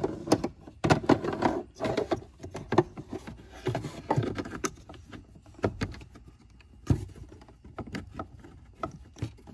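Hard plastic cabin air filter tray being slid and pushed into its housing behind a Land Cruiser's glove box: scraping and knocking plastic, busiest in the first half, then scattered sharp clicks as the tray is worked toward its latches.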